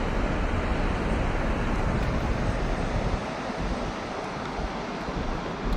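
A car driving along the sand beach: a steady rumble of the car and its tyres, mixed with wind noise.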